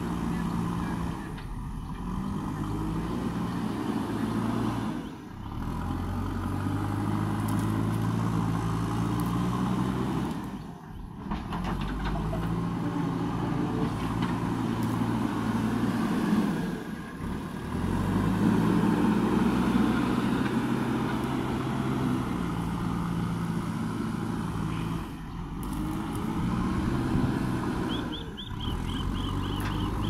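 JCB 3DX backhoe loader's four-cylinder diesel engine running under load, its revs rising and falling as the machine drives and works. The sound dips briefly several times.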